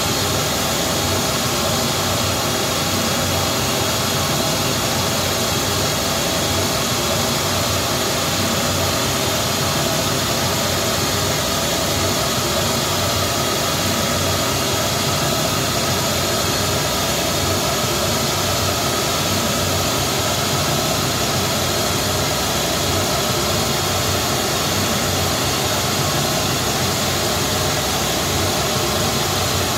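Steady, loud hiss of a pink-noise test signal played through a JBL SRX PA system, the measurement signal for a Smaart Live transfer-function measurement of the loudspeakers.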